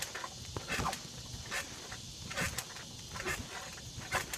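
Trampoline being bounced on: the springs and mat give a short creak-thump with each bounce, in a steady rhythm a little faster than once a second.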